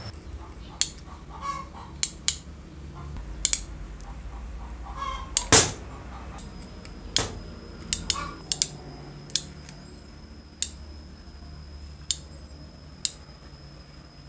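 Irregular sharp clicks and taps of wires, crimp connectors and the trigger switch being handled and seated in the drill's open aluminium handle housing, the loudest about halfway through.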